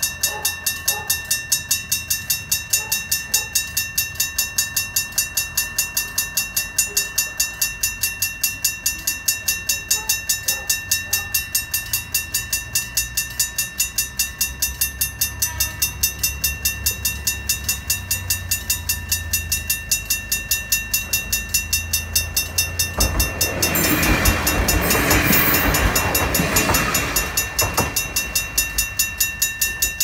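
Japanese level-crossing alarm bell ringing in a fast, even, repeating rhythm over the low rumble of an approaching diesel train. About 23 seconds in, the train passes over the crossing for about five seconds, loud with wheel clatter and engine noise that drowns out the bell.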